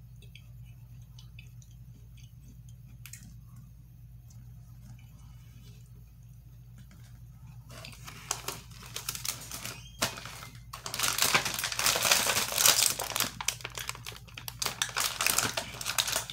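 Plastic snack wrapper crinkling loudly as it is handled, in two long rustling stretches with a short break between them, starting about halfway through. Before that, only a faint steady hum and a few soft clicks.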